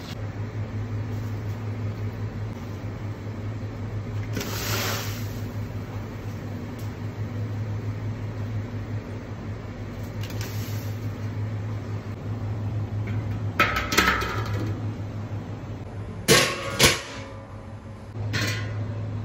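Handling a large stainless steel cooking pot over a steady low mechanical hum: a brief splash of liquid poured into the pot about four to five seconds in, some light knocks, then two loud metal clanks near the end as the pot's big metal lid is set on.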